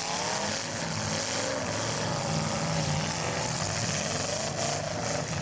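Engines of several full-size demolition derby cars running and revving, their pitch rising and falling over a constant din.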